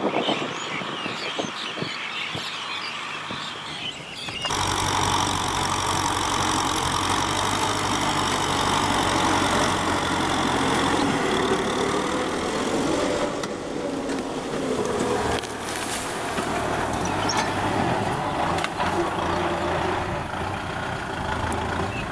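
Kubota M6040SU tractor's diesel engine running steadily under load while pulling a plow through dry soil. About four seconds in the sound shifts abruptly to a louder, steadier drone.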